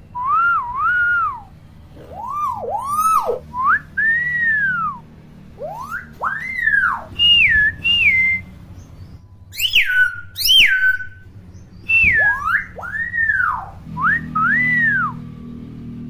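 Hill myna whistling loudly: a run of clear whistles that swoop up and fall away, some dropping sharply in pitch, with a few sharp high squawks mixed in about two-thirds of the way through.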